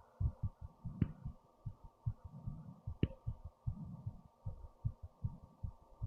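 Fast human heartbeat picked up through headphones used as a microphone: a quick run of dull, low thumps, several a second, with two sharp clicks about one and three seconds in.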